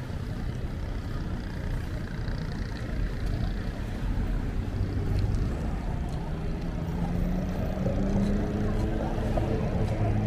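Street traffic: a steady low rumble of vehicles, with one engine's hum coming up clearly and rising slightly in pitch over the second half.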